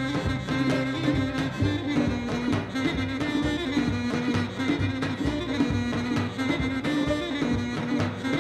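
Traditional Kurdish folk ensemble music: a double-reed pipe carries the melody over a plucked tar and a plucked zither.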